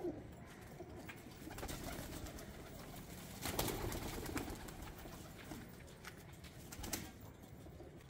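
Domestic pigeons cooing softly in a loft, with brief bursts of wing flapping about halfway through and again near the end as the birds are disturbed and one is caught by hand.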